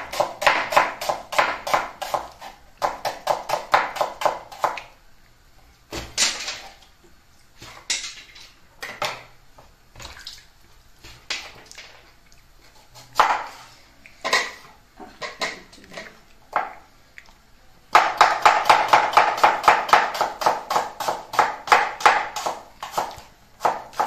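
Kitchen knife chopping a red onion on a wooden chopping board: quick runs of about five chops a second at the start and again from about three-quarters of the way through, with slower, scattered cuts in between.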